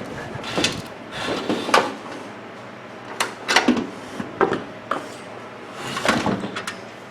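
Irregular plastic clicks, knocks and scrapes from hands working the latch parts of a microwave oven door, prying them loose to get the latch spring out, with a few louder clatters about two, three and a half and six seconds in.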